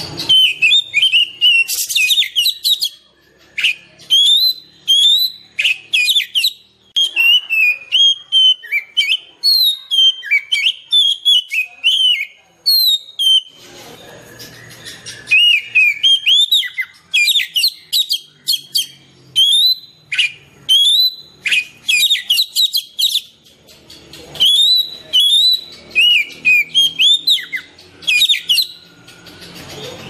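Oriental magpie-robin singing: a long, varied run of loud whistled notes that slide up and down, mixed with rapid high trills, in phrases broken by short pauses.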